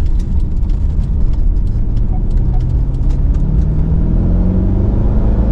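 2002 Chevrolet Corvette C5's LS1 V8 and road noise from inside the cabin: a low steady rumble, then about three seconds in the engine note starts climbing steadily as the car accelerates in gear.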